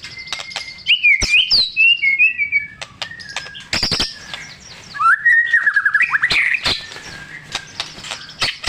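White-rumped shama singing: varied whistled phrases that glide up and down, with sharp clicks between them and a fast run of clicking notes near the end.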